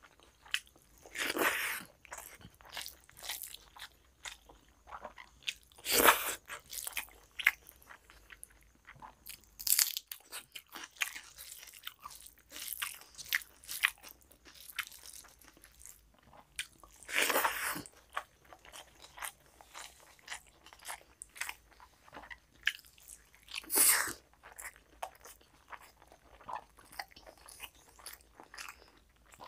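Close-miked eating by hand: rice and mutton curry being mixed with the fingers and chewed, with many small mouth clicks and ticks and about five louder, short rushes of sound a few seconds apart.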